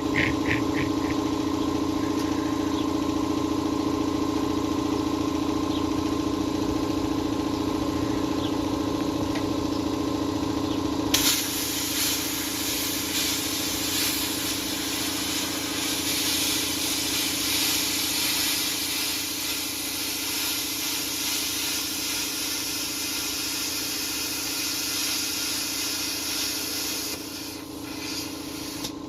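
Air-fed plasma cutter running: a steady hum with several pitched tones. About eleven seconds in, a loud, even hiss of air starts and carries on as it cuts sheet metal.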